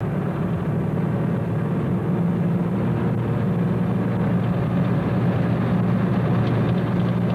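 Steady engine and road noise heard from inside a vehicle's cabin while it drives along a tarmac road, with a low, even hum.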